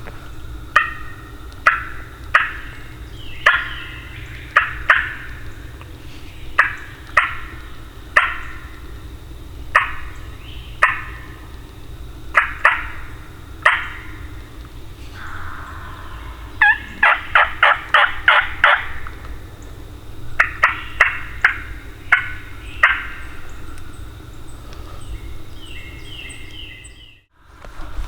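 Turkey calls: a string of short, sharp notes spaced about a second apart, with a quick run of about eight notes about two-thirds of the way through, then a few more. A steady low hum runs underneath.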